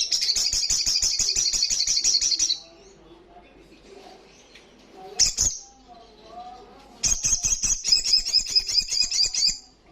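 Olive-backed sunbird (sogon) singing its fast trilling 'ngalas' song in two high, rapid bursts of about two and a half seconds each, with a single short call between them.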